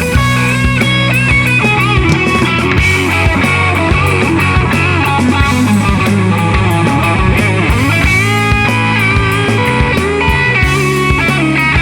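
Stoner rock band playing an instrumental passage: distorted electric guitar with bending lead notes over bass and a steady drum beat.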